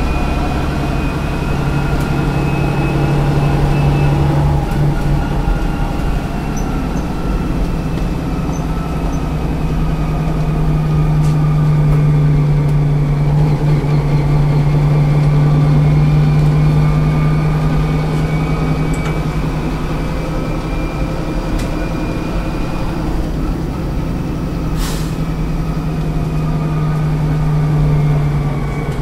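A 1971 Büssing DE double-decker bus's diesel engine idling steadily at a constant low pitch, with a brief hiss near the end.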